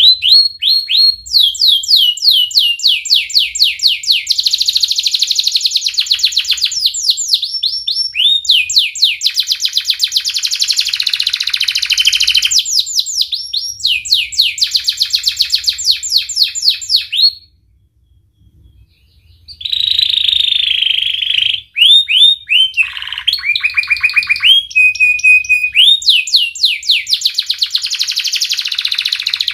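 Domestic canary singing: long fast trills and rolls of rapidly repeated high notes, each phrase shifting to a new pitch and rate, with a pause of about two seconds a little past the middle.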